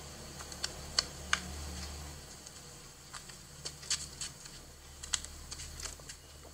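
Light, irregular clicks and taps, about a dozen scattered through, over a faint low hum.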